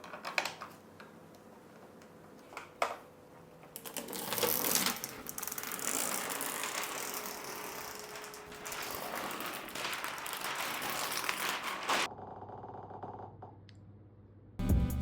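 Packaging being handled: a few sharp clicks, then several seconds of dense rustling and scraping with small clicks, which then stop. Music starts near the end.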